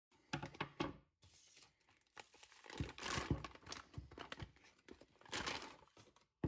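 Thin clear plastic bag crinkling and rustling in irregular bursts as a plastic filament spool is pulled out of it. The loudest crinkles come about three seconds in and again around five and a half seconds.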